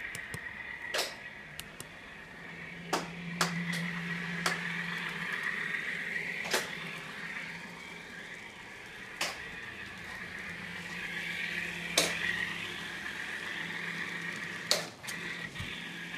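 Sound-equipped N scale FPA-4 diesel locomotive model playing its engine sound through its tiny onboard speaker: a steady, thin, buzzy running sound over a low hum. Sharp clicks come every second or few seconds.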